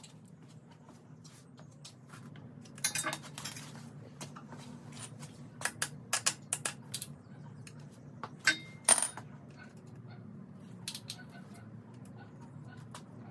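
Hand tools and loose metal parts clinking and clattering while the engine is taken apart: a short rattle about three seconds in, then a scatter of sharp metal clinks, a couple ringing briefly. A steady low hum runs underneath.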